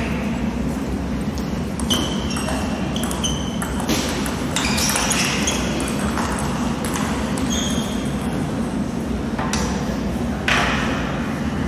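Table tennis ball rally: a quick series of sharp, ringing pings as the ball strikes the table and rackets, over a steady hall din. A short burst of noise follows near the end.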